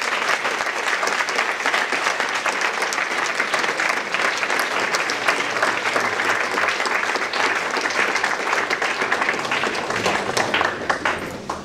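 Audience applauding steadily, thinning out and fading near the end.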